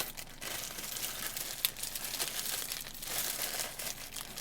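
Packaging around a batch of stickers crinkling and rustling as it is handled, with irregular small crackles and clicks.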